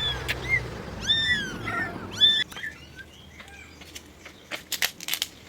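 Cats mewing: several short, high-pitched mews in quick succession, each rising and falling in pitch, over the first two and a half seconds, followed by scattered light clicks and rustles.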